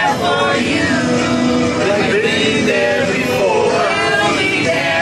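A group of men and women singing together in chorus.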